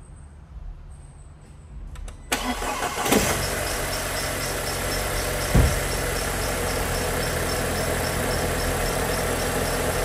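Audi A4 engine starting: the starter cranks briefly a little over two seconds in, the engine catches with a quick rise in speed, then settles into a steady idle, with one thump about halfway through. It starts because the bent starter terminal and badly seated starter connector have been put right.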